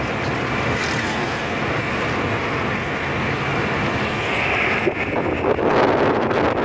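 A moving car's road and engine noise, a steady rush, with wind buffeting the microphone that grows stronger near the end.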